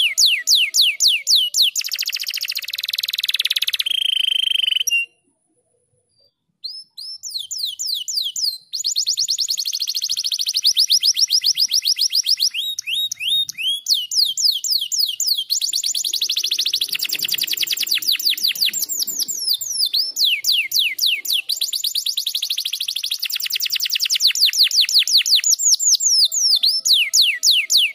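Domestic canary singing a long song of rapid repeated descending notes and fast, even trills, moving from one trill to the next. The song breaks off suddenly about five seconds in and resumes about a second and a half later.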